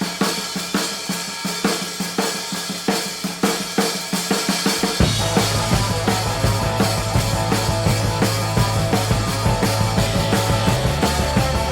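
Music: a drum kit playing a steady beat on its own, joined about five seconds in by a low bass line and other pitched instruments.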